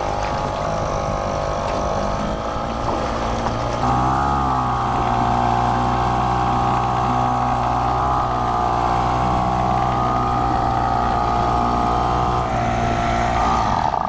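Johnson outboard motor on an inflatable dinghy running steadily at cruising speed. Its pitch shifts briefly about four seconds in.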